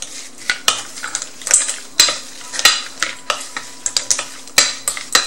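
Shredded mango and carrot salad being tossed in a stainless steel mixing bowl: a wet rustling of the dressed shreds, broken by frequent, irregular sharp clicks and knocks.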